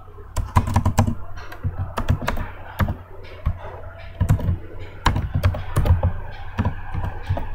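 Typing on a computer keyboard: quick, irregular keystrokes, with a steady low hum underneath.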